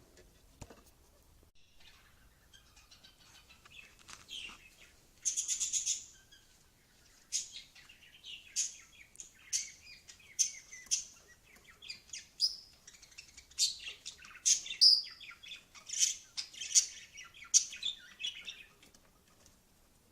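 Lovebirds chirping: many short, shrill high-pitched calls that start about four seconds in and come thick and fast through the second half, with one longer, harsher call about five seconds in.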